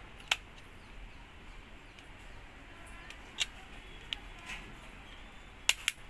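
Sharp plastic clicks from a Karbonn Jumbo K9 keypad phone as its battery is pressed into place and its back cover is snapped on: one click near the start, two more around the middle, and a quick double click near the end.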